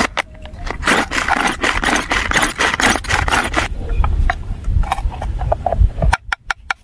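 Hand-operated vegetable chopper chopping garlic and onion: a dense run of rapid plastic rattling and clicking for about three seconds, then a few separate clicks and knocks.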